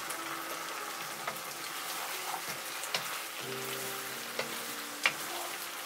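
Thick sweet soy sauce sizzling steadily in a non-stick frying pan as chicken drumsticks are stirred with a wooden spatula, with a few sharp clicks of the spatula against the pan, the loudest about five seconds in.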